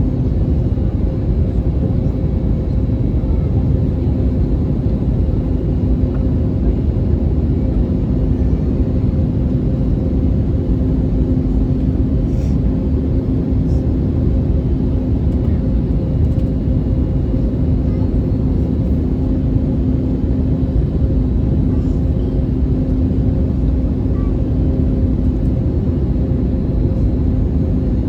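Airbus A320neo cabin noise: a constant low rumble of airflow and engines with a steady hum running through it.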